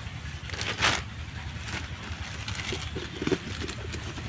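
Outdoor ambience: a steady low rumble with one short, loud rustling burst about a second in and scattered faint crackles.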